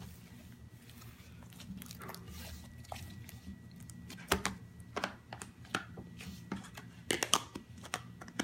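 Slime being squeezed and stretched by hand, giving off irregular sticky pops and crackles, with a cluster of louder pops about seven seconds in. A steady low hum runs underneath.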